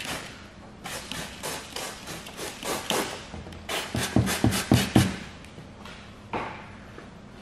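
Hand-held trigger spray bottle squirting PPF tack solution under the film: a string of short sprays, coming quickly, about five a second and loudest about four to five seconds in.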